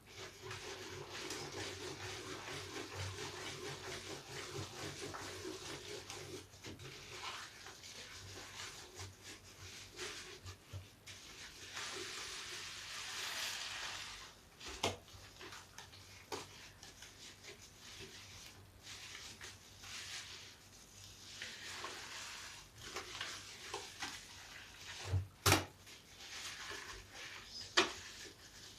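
A large bath sponge, lathered with scraps of soap, squeezed and kneaded by hand: wet, foamy squelching that swells and fades, with a few sharp clicks in the second half.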